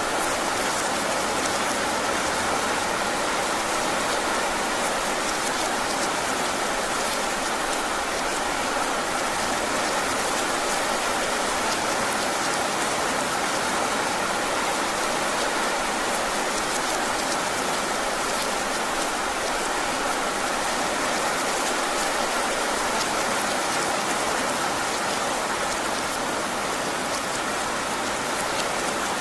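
Heavy rain falling steadily, a dense even hiss of drops with no break.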